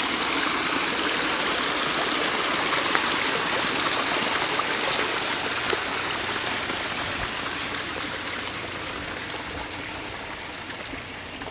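Small garden stream babbling and trickling over stones, a steady rushing hiss that slowly fades over the last few seconds.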